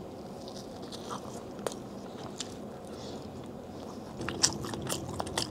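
Close-miked biting and chewing of a coin-shaped cheese cake (bánh đồng xu), with scattered small crunches and wet mouth clicks.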